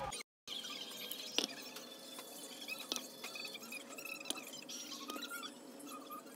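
Papery garlic skins crackling and rustling as fingers peel crushed garlic cloves, with scattered small clicks and faint squeaks. The sound cuts out briefly right at the start.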